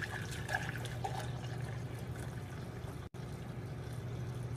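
Liquid pouring in a steady stream from a large pan into a glass Pyrex measuring jug, over a steady low hum. The sound drops out for an instant about three seconds in.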